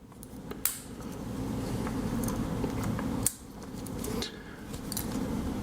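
A few sharp small-metal clicks from the little scissors of a Victorinox Classic SD Swiss Army knife, over a steady low hum.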